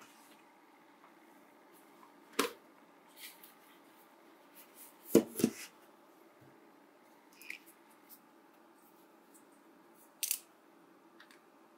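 Plastic cover of an Asakuki 500 ml essential oil diffuser being handled against a hard tabletop. There is a click about two seconds in, then two knocks about five seconds in, the loudest sounds, as the cover comes off and is set down. A few lighter taps follow.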